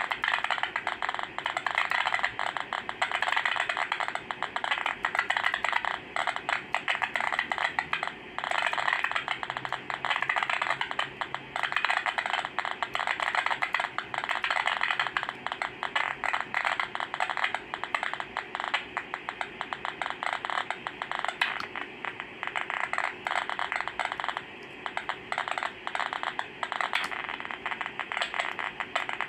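Hiss and crackling static from a uSDR (CN-SDX) shortwave transceiver's receiver, tuned across the 40-metre band in upper sideband with no station coming through.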